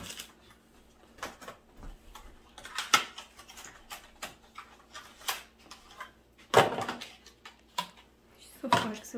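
A small cardboard box being cut open and a phone case in a plastic sleeve slid out of it: rustling, scraping and crinkling with a string of sharp clicks and knocks. The loudest knocks come about three and six and a half seconds in.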